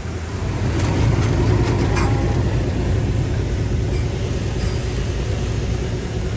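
Heavy diesel earthmoving machine running under load, getting louder about a second in, with a few metallic clanks.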